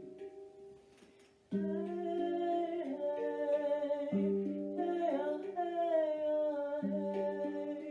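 Handpan notes struck and left ringing under wordless sung vocals that glide and waver. The music is quiet and fading at first, then comes back in strongly about a second and a half in, with low handpan notes struck again roughly every two and a half seconds.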